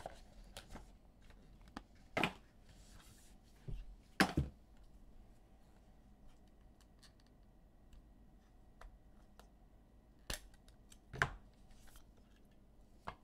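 Trading-card packs, cards and plastic holders being handled on a table: a handful of sharp clicks and snaps, a few seconds apart, over quiet room tone.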